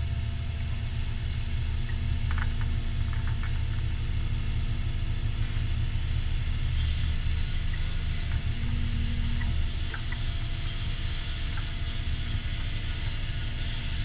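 Concrete pump truck's diesel engine running steadily, an even low hum with no change in speed.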